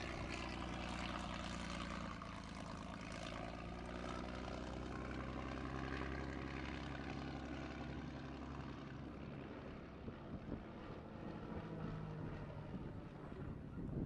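Propeller engine of a replica Fokker D.VII biplane droning steadily in flight, its pitch drifting slightly as the aircraft manoeuvres.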